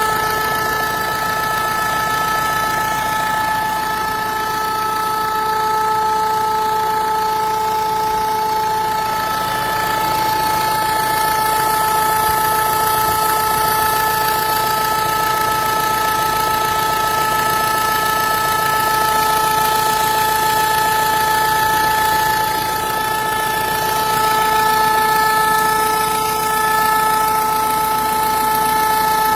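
Renault 1.5 dCi four-cylinder turbodiesel engine running at a steady speed, with a steady whine held on a constant pitch over the engine noise. The recording was made to show a noise from this engine.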